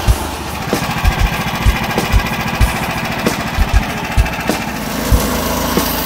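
Portable bandsaw mill's 15 hp Lifan petrol engine running steadily under way, with short low thumps at uneven intervals of about half a second.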